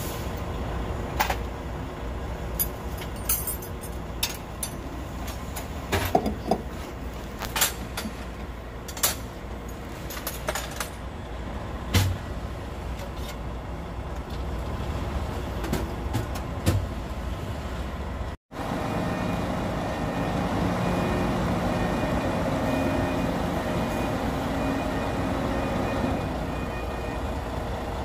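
Hyundai Trago 380 heavy truck's six-cylinder diesel engine running with its repaired turbocharger: a low steady rumble with scattered irregular clicks. After a cut, heavy trucks run steadily in a yard.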